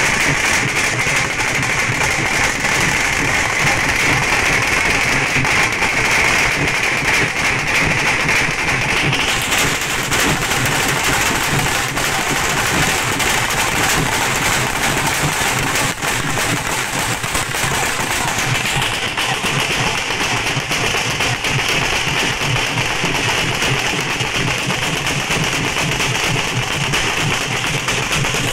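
A troupe of dhols, large double-headed barrel drums, played together with sticks: a dense, continuous stream of loud drum strokes.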